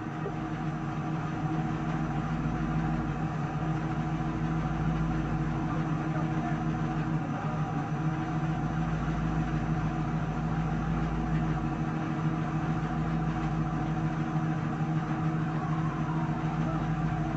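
Stopped police patrol car's engine idling: a steady hum with a low rumble beneath it.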